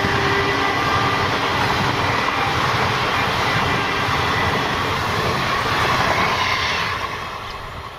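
Indian Railways express train passing at speed: a loud, steady rush of wheels on the rails and passing coaches, dying away about seven seconds in as the train clears.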